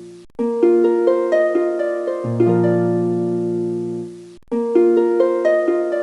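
Background music of plucked string notes, each struck and fading away. The phrase breaks off briefly just after the start and again about four and a half seconds in, then starts over.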